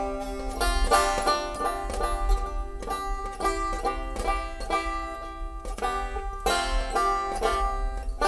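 Resonator banjo played solo, a quick, steady run of picked notes ringing out. It is the instrumental introduction to a sung song.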